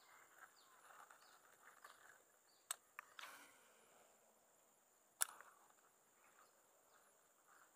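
Near silence: faint steady insect buzzing with a few faint chirps. There are sharp clicks, two close together at about three seconds in and one a little after five seconds.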